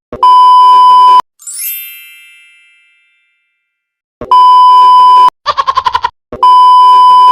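Three censor bleeps, each a steady one-second beep. After the first comes a falling chime that rings out and fades. Between the second and third is a short, rapidly pulsing warble effect.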